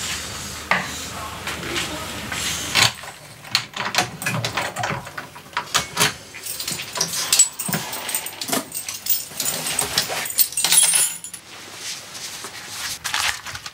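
A few spaced knocks like footsteps, then a quick clatter of small hard objects such as keys and coins being handled and rummaged through, tailing off near the end.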